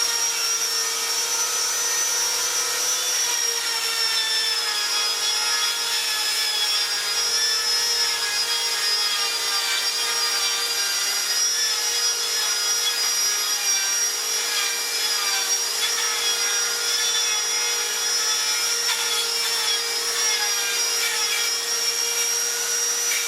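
An electric power tool running continuously on wood, with a steady motor whine that wavers slightly in pitch as the load changes, over the rasp of the cut.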